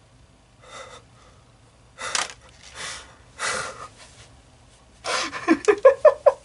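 A man gasping, with several sharp breaths, then from about five seconds in a quick run of voiced sobs, six or seven short cries in a row.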